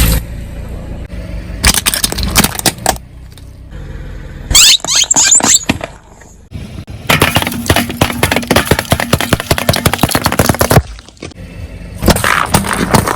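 Objects crunching and cracking under a car tyre in four separate bouts, the longest lasting nearly four seconds past the middle.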